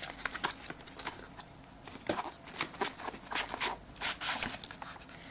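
Cardboard retail box and its packaging being handled and pulled apart to get the contents out: a quick run of rustles, scrapes and light knocks, busiest from about two seconds in.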